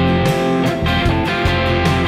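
Overdriven electric guitar strumming chords in a steady rhythm, played through analog overdrive pedals into a Mooer GE200's cabinet impulse response and recorded direct.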